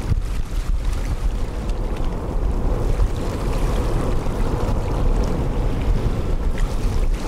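Strong wind buffeting the camera microphone, a steady low rumble that makes up most of the sound.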